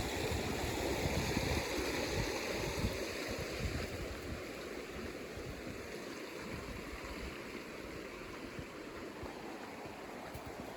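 Creek water running steadily, louder for the first few seconds and then easing off a little.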